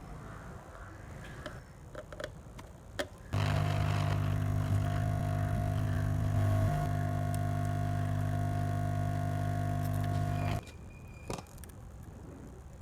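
A steady electric hum with a low buzz, switched on abruptly about three seconds in and cut off about ten and a half seconds in, with light clicks and taps of workbench handling before and after.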